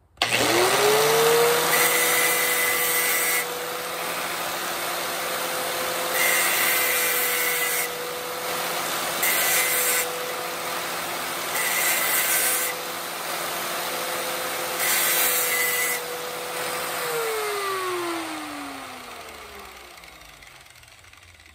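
Small angle grinder with a cutoff wheel spinning up and running at a steady whine. It grinds in five short spells as the wheel is pressed against the end of a plastic sensor body to take it down. Switched off about 17 seconds in, it winds down with a falling pitch.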